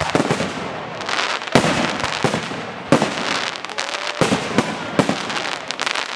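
Aerial fireworks shells bursting in a dense run, sharp bangs over constant popping, with the loudest reports about one and a half, three, four and five seconds in.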